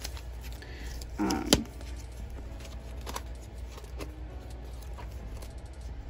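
Hands handling and opening the plastic packaging of a scrapbook paper set: faint rustles and small clicks, with one louder short rustle ending in a sharp click about a second and a half in.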